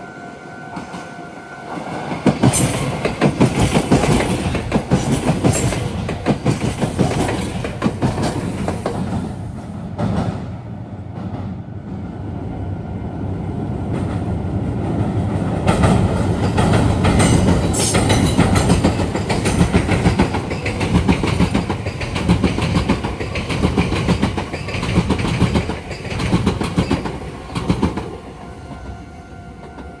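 A Meitetsu electric train passes close by, its wheels clattering rhythmically over rail joints and the junction's points, with a short lull about ten seconds in before it grows louder again. A steady warning tone, likely the level-crossing alarm, is heard before the train arrives and again as it fades near the end.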